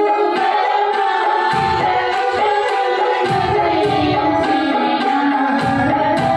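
A group of women singing a song together into microphones, over an accompaniment with a steady percussion beat.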